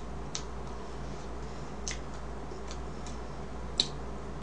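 A handful of short, light clicks spread irregularly over a few seconds while cake is eaten with a metal fork, the sharpest near the end, over a steady low hum.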